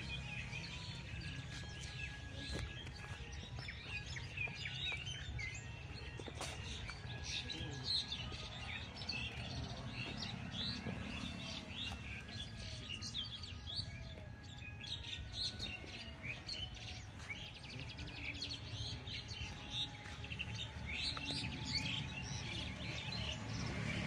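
A dense chorus of many small birds chirping and calling, with rapid short chirps and a few brief whistled notes, over a low steady background rumble.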